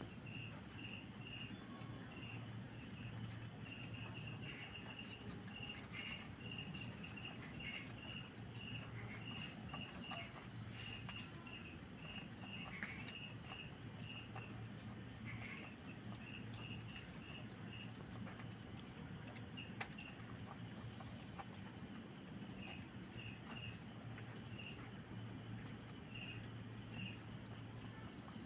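Crickets chirping in repeated trains of short high pulses, over a low hum that comes and goes and a few faint scattered clicks.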